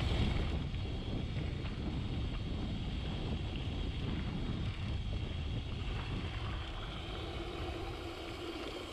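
Steady wind rumble on the microphone while riding a gravel bike, easing off a little near the end.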